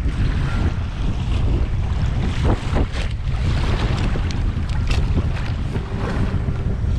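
Wind buffeting the microphone, a steady low rumble over the sound of open sea, with a few light knocks about halfway through.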